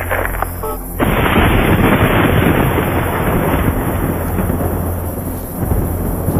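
Thunder sound effect: a clap breaks about a second in and rolls on, slowly fading away.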